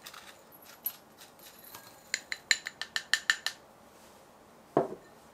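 A spatula scrapes beet sugar out of a small glass bowl and taps against its glass, giving a quick run of about nine ringing clinks. A single duller knock comes near the end.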